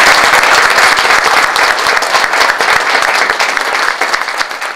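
Audience applauding: dense clapping from many hands that slowly dies down.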